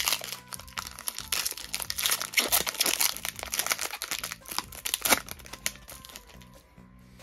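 Foil Pokémon Battle Styles booster pack being torn open at the top and its wrapper crinkled as the cards are slid out. Dense, irregular crinkling, busiest in the middle, dies away about five and a half seconds in.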